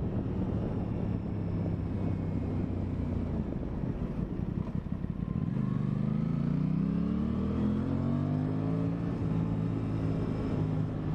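Aprilia Tuono 660 parallel-twin engine heard from the rider's seat, running steadily at first. About halfway through, the rider accelerates and the engine note climbs for a few seconds, then levels off.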